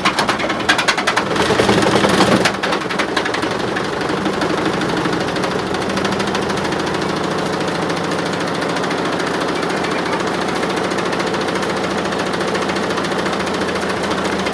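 Samsung washing machine running with heavy bricks in its drum: a rapid rattling clatter for the first two seconds or so, then a steady loud drone with knocking and vibration as the loaded drum turns.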